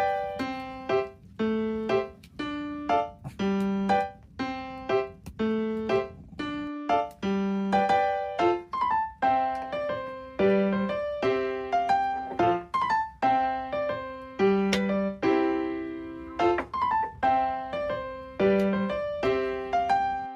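Background music: a gentle piano or electric-piano melody of separate notes, each struck and dying away, in a repeating pattern.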